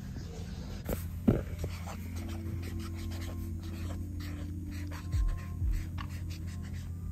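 A marker scratching over notepad paper in a run of short strokes as a word is written. Background music plays underneath, with a couple of low beats near the end.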